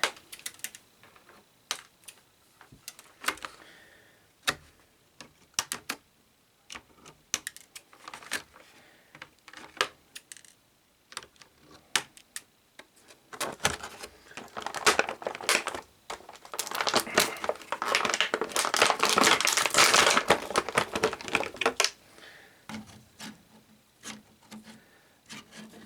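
Plastic toy packaging being handled as an action figure is worked free of its display tray: scattered sharp clicks and taps of plastic, with a denser stretch of crinkling and rustling lasting several seconds around the middle.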